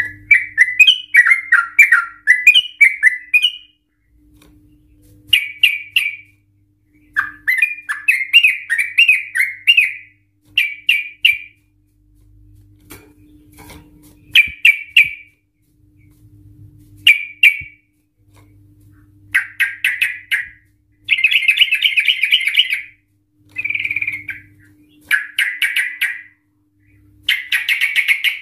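Yellow-vented bulbul singing in fast, excited bursts: about ten bubbly, chattering phrases with short gaps between them. The longest run is in the first few seconds, and a denser, rapid trill lasts about two seconds past the middle. This is the agitated, long-trilled 'ropel' song that keepers play to set other bulbuls singing.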